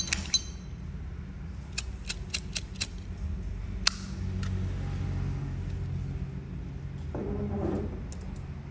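Scattered light metal clicks and taps from a vintage Zippo lighter being handled, over a low steady hum. The clicks come in a quick cluster about two to four seconds in.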